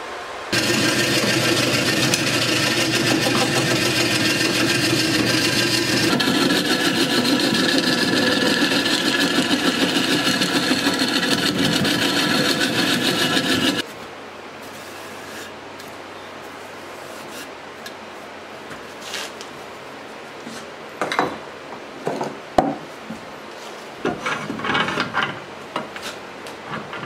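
Wood lathe spinning a wooden blank while a turning chisel cuts into it: a loud, continuous cutting and scraping noise over the machine's hum. About 14 seconds in it stops suddenly, leaving a quiet running hum broken by short, irregular touches of the tool on the wood near the end.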